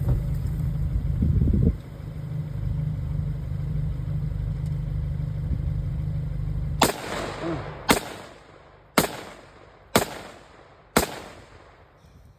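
Five single sharp shots about a second apart, typical of an airsoft rifle fired semi-automatically. They come after a steady low rumble that stops abruptly about seven seconds in.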